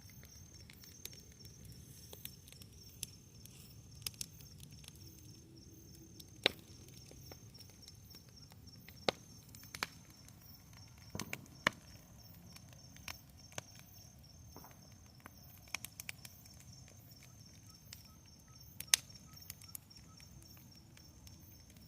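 Wood bonfire crackling: irregular sharp pops and snaps, a few of them loud, over a low steady rush.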